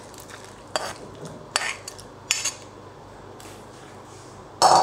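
Steel ladle clinking and scraping against a metal pot while soup is ladled into a glass bowl: a few short clinks in the first half, then a louder clatter near the end.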